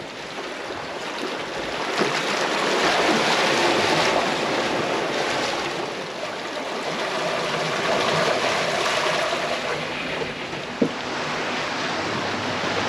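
Sea water rushing and splashing along the hull of a sailing yacht under way, swelling and easing with the waves, with one light knock near the end.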